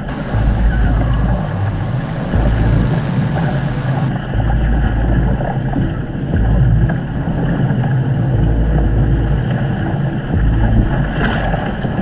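Wind buffeting the boat-mounted camera's microphone in gusts, over water rushing along the hull of a surfski being paddled downwind through choppy sea. A bright hiss of rushing water and spray fades about four seconds in, and a paddle stroke splashes near the end.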